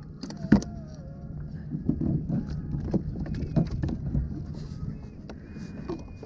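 Irregular clicks and knocks from a baitcasting rod and reel being worked aboard a plastic fishing kayak, with a sharp click about half a second in and a brief thin high whine near the end.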